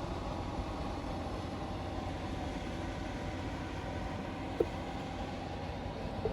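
Toy construction vehicle running with a steady mechanical hum, and a single click a little over four and a half seconds in.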